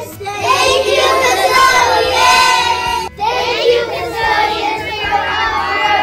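A group of young children singing together in unison. The singing breaks off sharply about three seconds in, and another group of children carries on singing.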